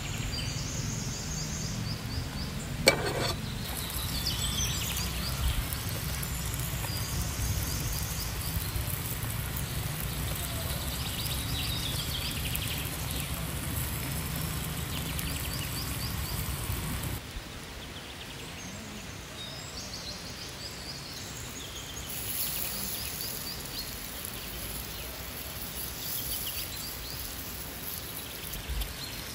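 Chopped tomatoes and peppers sizzling in a pan over wood-fire embers, with birds chirping. A single sharp knock comes about three seconds in, and the sound drops quieter a little past halfway.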